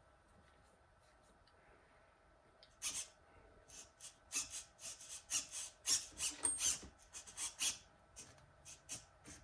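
A run of short clicking and rasping bursts, a few a second, beginning about three seconds in: the throttle servo and ball-link throttle linkage on an RC car being worked back and forth while the brake endpoint is tested.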